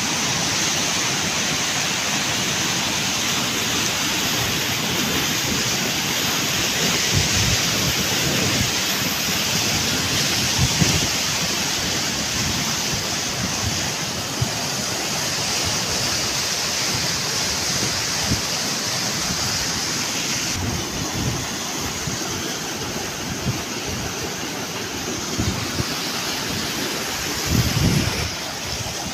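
Muddy flash-flood water rushing down a rocky stream channel: a loud, steady rush of churning water. Wind buffets the microphone now and then, most strongly near the end.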